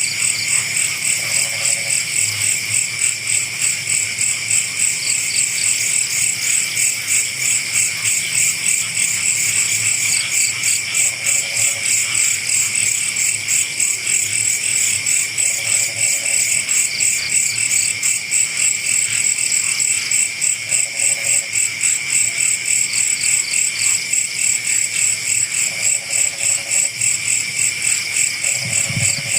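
Night chorus of crickets and other insects, a steady pulsing trill, with a short frog call breaking in every few seconds.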